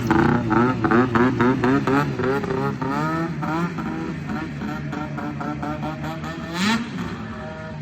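Ski-Doo 600 EFI two-stroke twin snowmobile engine, fitted with a Jaws race can exhaust, being revved. It blips the throttle rapidly, two or three times a second, then settles to a steadier note with one stronger rev near the end.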